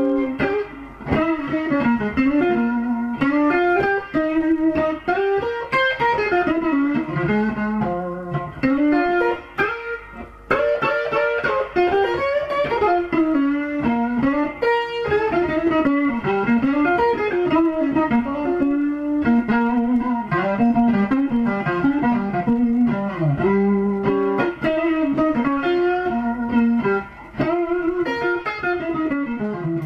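Electric guitar played through a guitar amplifier: a continuous improvised lead of mostly single-note lines with frequent bends and slides.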